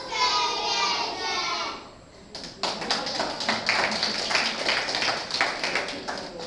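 A group of young children's voices in unison ends about two seconds in. Then comes applause from many hands for about four seconds, which stops shortly before the end.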